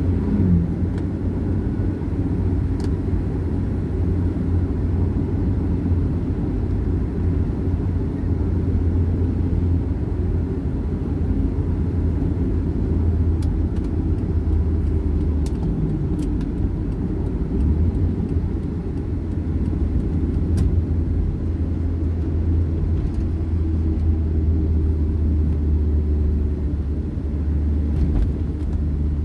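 Steady road and engine noise heard inside a Daihatsu car's cabin while driving at about 50 to 75 km/h: a low, even rumble.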